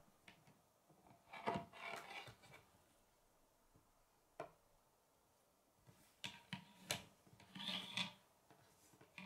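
Plastic K'nex rods and connectors clicking, knocking and rubbing on a wooden tabletop as a built model is handled and turned around, in short scattered bursts with quiet gaps between.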